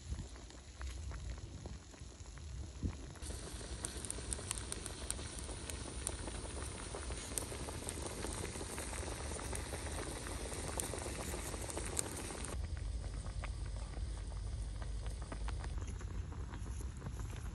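Wok of water with pig trotters boiling over a wood fire, bubbling steadily with scattered small crackles. The bubbling is fuller and louder through the middle stretch.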